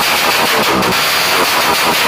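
Rusi DL 150 motorcycle engine running loud through an aftermarket exhaust pipe, a steady raspy blare with its pitch shifting a little.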